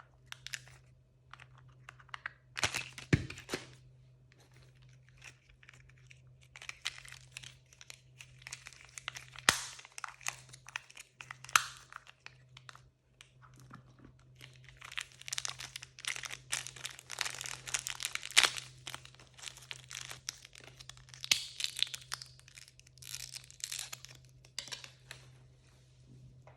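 Blind-bag packaging being torn open and crinkled by hand, in irregular rustling bursts with a few sharp snaps.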